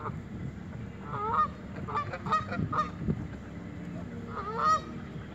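Canada geese honking: about five loud, nasal honks, three of them in quick succession in the middle and one more near the end.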